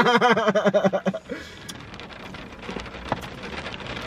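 A person laughing, a quick run of rhythmic pulses for about the first second, then a steady hiss with faint scattered ticks for the rest.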